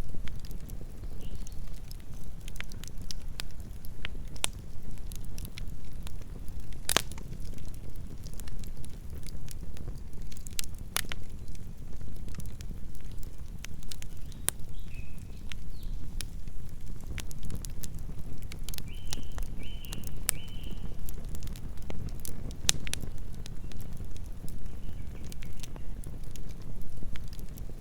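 Campfire burning: a steady low rumble of the flames with scattered sharp crackles and pops from the burning wood, one louder pop about seven seconds in.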